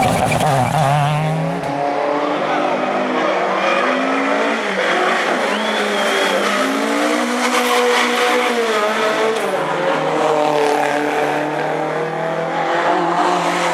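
Rally car's engine driven hard, its revs rising and falling again and again through gear changes, with some tyre noise.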